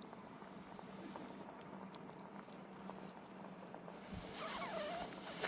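Faint crackling and simmering from a campfire stand with oden heating in an aluminium mess tin, and a steady low hum underneath. About four seconds in, a brief wavering pitched sound glides downward, and a sharp click comes at the very end.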